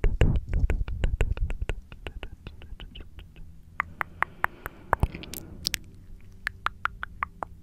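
Tongue clicking and wet mouth sounds made right at a condenser microphone: a fast run of sharp clicks, several a second, with dense low thudding in the first two seconds and a breathy hiss around four to five seconds in.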